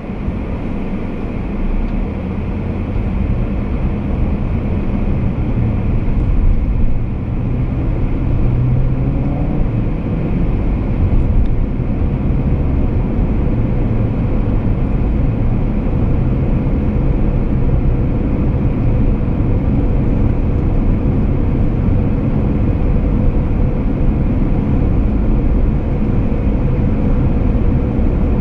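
Car driving, heard from inside the cabin: low engine and road rumble that grows louder over the first couple of seconds as the car pulls away and speeds up, then holds steady at cruising speed.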